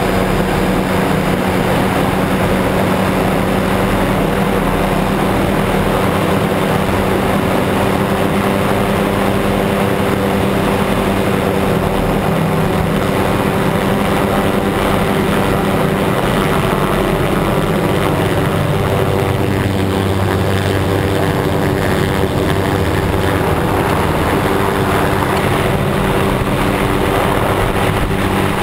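Helicopter engine and rotor noise heard from aboard the helicopter, loud and steady. Its tone shifts a little about two-thirds of the way through.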